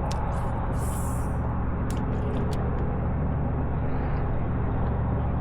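Boat outboard motor running steadily at an even pitch, with a few light clicks near the start and about two seconds in.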